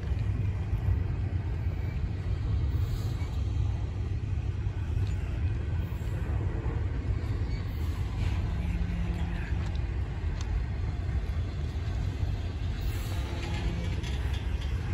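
Long intermodal freight train rolling past, a steady low rumble of its wheels and cars on the rails.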